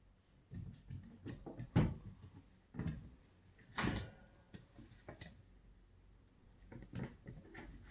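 Irregular knocks, scuffles and clicks of kittens scrambling and pouncing around a cushioned pet bed on a wooden floor. The loudest knocks come about two and four seconds in.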